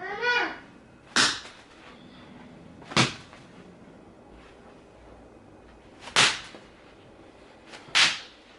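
Small novelty firework pops: four sharp cracks at irregular intervals, each with a short hissy tail. A brief rising squeak comes just before the first one.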